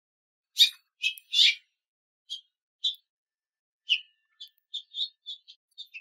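Female house finch calling: short high chirps, a few louder ones spaced roughly half a second to a second apart, then a quicker run of softer chirps over the last two seconds.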